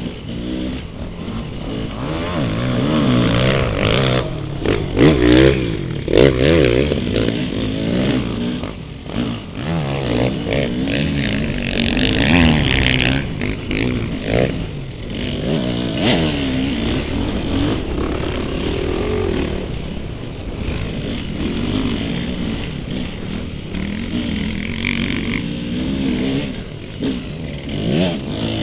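Dirt bike engine revving up and down again and again, the pitch rising and falling with the throttle, with several knocks and scrapes mixed in around the first third of the stretch.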